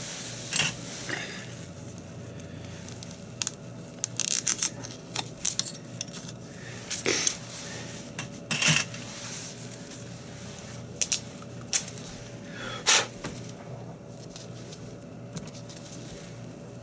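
Hands working duct tape onto a wood lathe's chuck and workpiece: irregular clicks, taps and short rustles of tape and handled tools, a few louder ones scattered through, over a steady hum.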